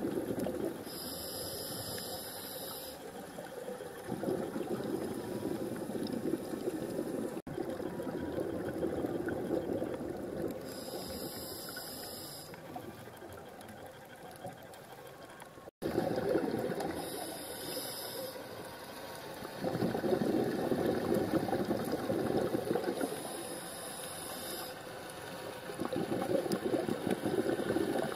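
Underwater sound picked up through a camera housing: a scuba diver's breathing, with a hissing regulator inhale and a rushing bubble exhale repeating every several seconds. The sound breaks off briefly twice.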